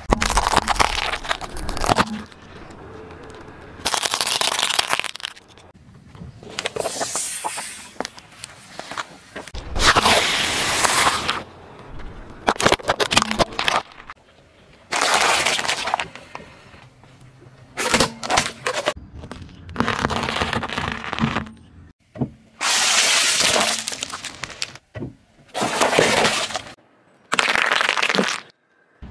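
Car tyre rolling over and crushing plastic containers and other objects, heard as a series of about ten loud crackling, cracking bursts, each a second or two long, with quieter gaps between them.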